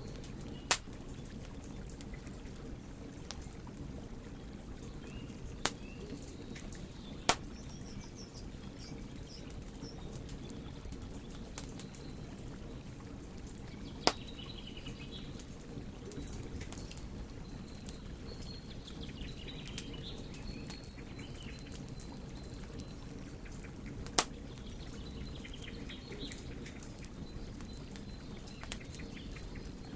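Wood fire burning with a steady low rush and light crackle, broken by about five sharp pops of the burning wood. Faint bird chirps come and go in the background.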